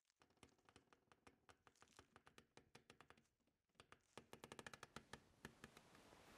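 Very faint irregular clicking and crackling that grows quicker and stronger about four seconds in, then gives way to a faint steady hiss near the end.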